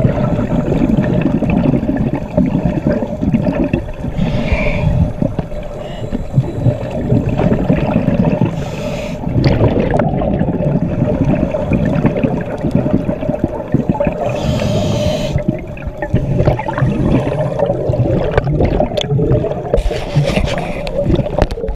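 Underwater sound of scuba divers breathing: muffled gurgling bursts of regulator exhaust bubbles every few seconds, over a continuous low rumble and a steady hum.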